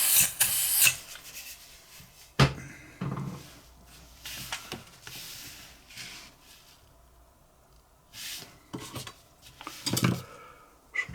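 Small clicks, taps and rubbing of a butane pipe lighter's parts being handled and put back together, with one sharp click about two and a half seconds in. Short hisses near the start and at the end.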